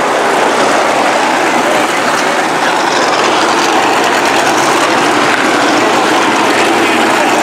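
A field of RaceSaver sprint cars running at speed, their 305 cubic-inch V8 engines blending into one loud, steady wall of engine noise.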